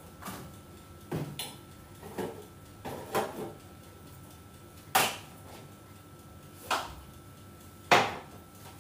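Kitchen handling sounds: bottles and utensils picked up and set down on the worktop, about seven separate knocks and clunks, the loudest about five seconds in and near the end. A faint steady high hum runs underneath.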